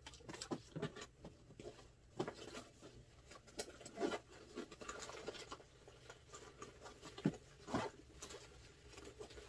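Rummaging through a cardboard box and a fabric drone shoulder bag: light rustling with scattered small clicks and taps at irregular intervals.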